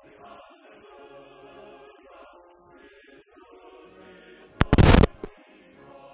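A group of men's voices singing together, cut into about four and a half seconds in by a sudden, very loud blast lasting about half a second, followed by a smaller crack. A faint steady high whine runs underneath, typical of an old film soundtrack.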